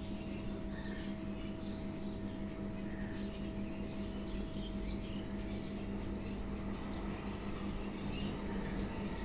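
Many small cage birds in an aviary colony chirping with short, high calls, scattered throughout, over a steady low hum.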